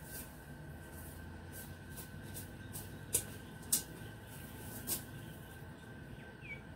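Scattered crackles and snaps of dry leaf litter and twigs as a person moves through shrubbery, with three sharper snaps in the middle. A faint steady high tone runs underneath, and a short bird chirp comes near the end.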